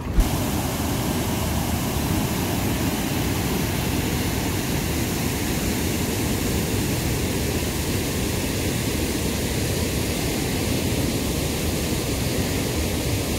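Fast-flowing river water rushing through a rocky gorge: a steady, even rush with no change, plus a short click just after it begins.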